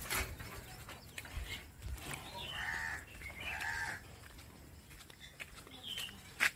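Two harsh animal calls, about two and a half and three and a half seconds in, over outdoor village background, with a few soft footsteps.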